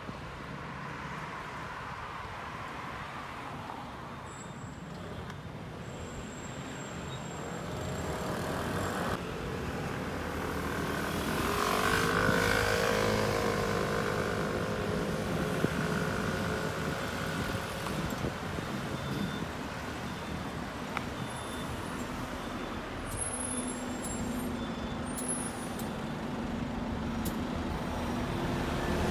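City street traffic: motor scooters and cars passing at an intersection. Engine sound swells as vehicles pass close, loudest about twelve seconds in.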